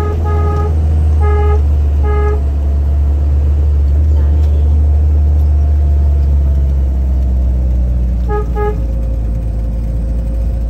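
Vehicle engine droning steadily as it climbs, with a car horn tooting in short beeps: four in the first couple of seconds and a quick double toot about eight seconds in.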